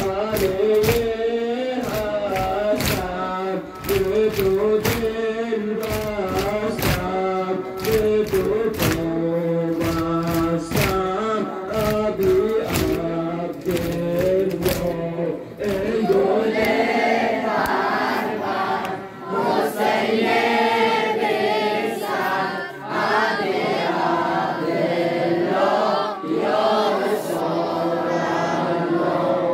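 A group of male voices chanting a Muharram noha (Shia lament) in unison, with chest-beating slaps of matam keeping a steady beat at roughly two a second. The slaps are sharpest in the first half; from about the middle the chanting swells and grows higher.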